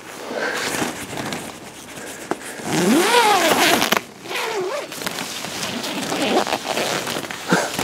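Rustling, crackling and scraping with scattered small clicks, as something hidden is stirred. About three seconds in, a drawn-out pitched sound rises and falls, with a shorter one after it.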